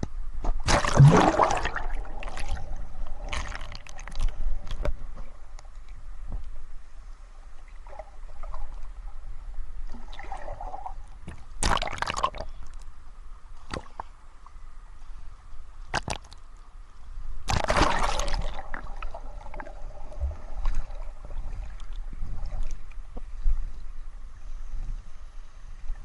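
Sea water heard underwater through an action camera: muffled gurgling and sloshing, with a few louder splashes about a second in, near the middle and about two-thirds through.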